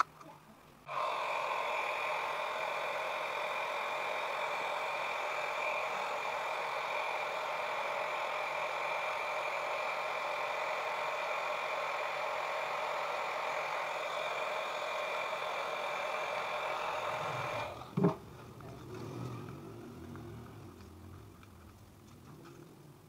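Hot air gun switched on about a second in and running with a steady fan whine, blowing on a curved PVC sheet to soften it for shaping. It cuts off suddenly, followed at once by a single sharp thump and then soft handling of the plastic.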